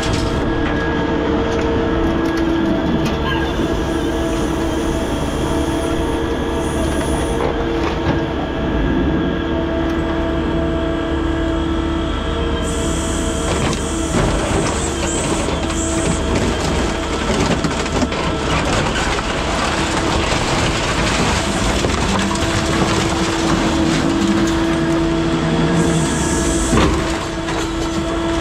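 Scrap material handler running with a steady hydraulic whine while its grapple lifts, swings and drops loads of crushed scrap metal. Metal clatters and scrapes, and this grows busier from about halfway through.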